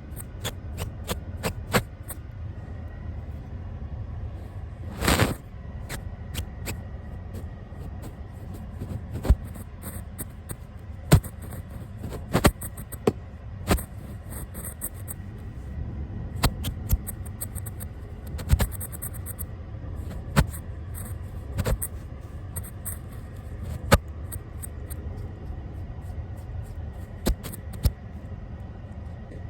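A brush worked against the camera: irregular sharp clicks and taps of bristles and handle on the lens, with one short brushing sweep about five seconds in, over a steady low rumble.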